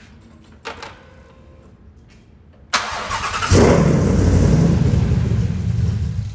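Ford 5.2-litre cross-plane-crank V8 started after sitting unused for a long time: the starter cranks briefly, the engine catches about three and a half seconds in and runs loud at idle, easing slightly near the end. A small click comes about a second before the cranking.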